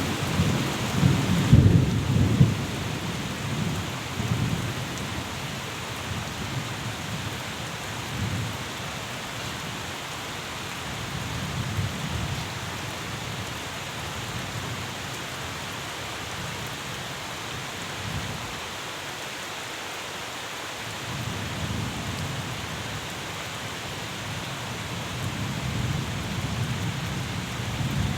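Steady rain with low rolling thunder that swells and fades, heaviest in the first couple of seconds and building again in the last third.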